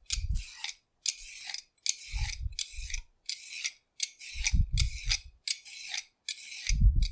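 A vegetable peeler scraping down a carrot in quick, regular strokes, about two a second, with a few dull knocks in between.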